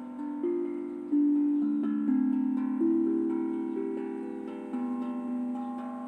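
A tuned, melodic drum played one note at a time, slowly and gently, each note struck sharply and left to ring and fade as the melody steps up and down.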